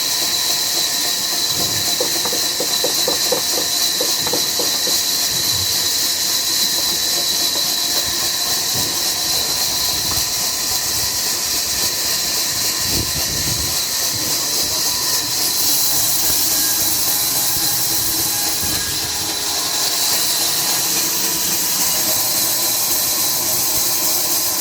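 Sawmill machinery running: a loud, steady hiss with faint squealing tones, and a brief run of pulsing strokes a couple of seconds in.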